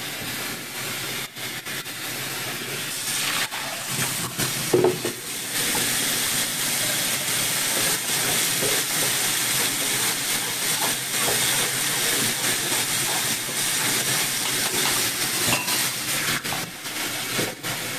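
Kitchen faucet running a steady stream into a sink, the water splashing as a pitcher and a mesh strainer are rinsed under it, with a few light knocks as they are handled.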